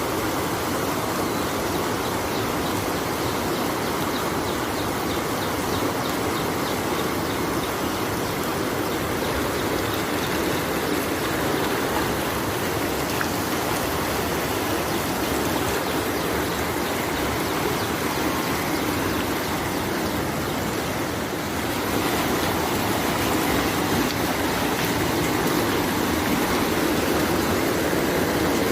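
Steady rush of fast-flowing floodwater from a swollen river, an even churning noise that shifts slightly about three-quarters of the way through.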